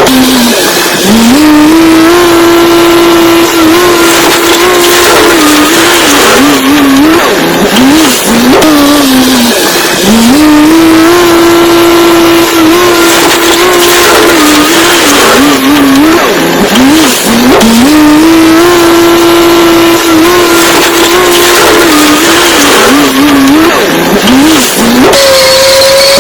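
Vehicle engine revving: the pitch climbs, holds steady, wavers and drops back, in a cycle that repeats about every eight seconds. About a second before the end it changes to a steady, higher note.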